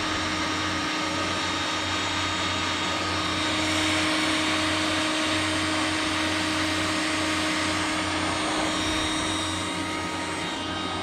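Electric heat gun running steadily on a raised fan setting, a steady rushing blow with a motor hum, heating a heat-shrink wire connector.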